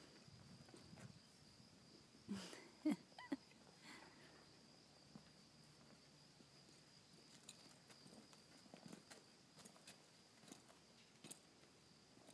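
Near silence, broken by a few short sounds about two to three seconds in and faint scattered clicks later on.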